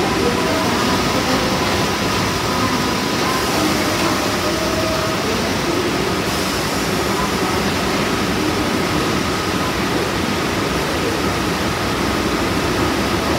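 New York City Subway R62A train running along the station platform: a steady rumble of wheels on rail, with a faint steady whine over it.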